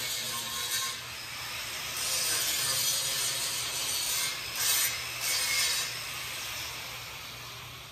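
Metalworking on a steel car frame: a harsh, steady hiss in stretches, with a short louder surge a little past halfway and a fade near the end.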